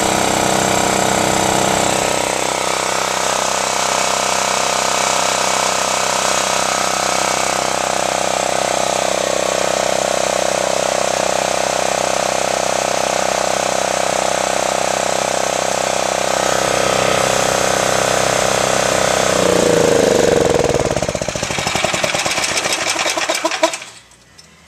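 Generac XG8000E portable generator's engine running steadily at its governed speed. About 19 seconds in it is shut off: the pitch falls as the engine coasts down, and it stops about 24 seconds in.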